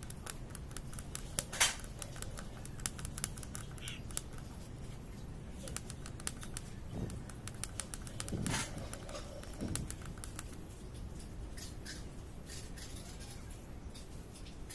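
Electric arc from a homemade transformer stick welder crackling and sputtering as the rod welds a steel strip. The crackle thins out in the last few seconds as the arc stops.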